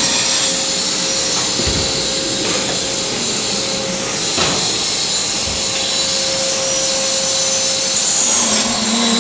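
A power tool running steadily while working on aluminium, a harsh continuous noise with a constant hum underneath.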